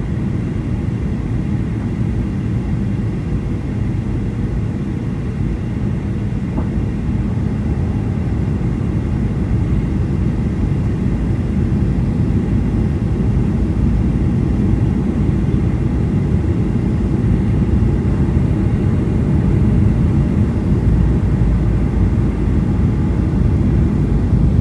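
Steady low rumble of an airliner's cabin noise, from the engines and airflow heard inside the cabin, slowly growing a little louder, with faint steady tones over it.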